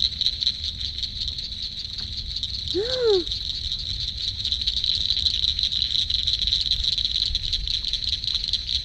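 Steady, high-pitched, finely pulsing night chorus of calling animals at a lakeshore in spring. About three seconds in, one brief rising-and-falling voice sound.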